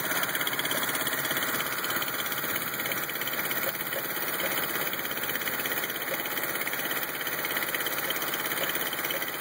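1986 Honda CRX's four-cylinder engine idling roughly, with a steady rapid pulsing and a slightly uneven level.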